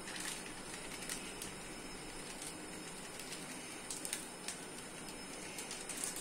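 A small packet crinkling and tapping as powder is shaken out of it over cut raw potato sticks in a steel bowl: scattered light ticks and rustles over a steady faint hiss.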